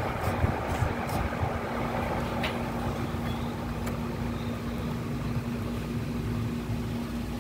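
Steady machine hum with one constant low tone, from a running engine or motor; a few faint clicks in the first three seconds.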